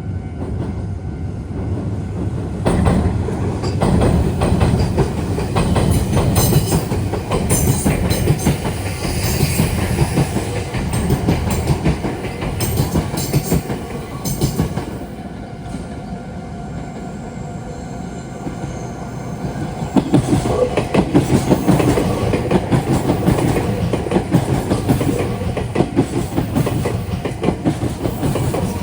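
A Meitetsu electric train passing through a railway junction, its wheels clattering over the rail joints and points. The clatter is loudest in two spells and eases off for a few seconds in the middle.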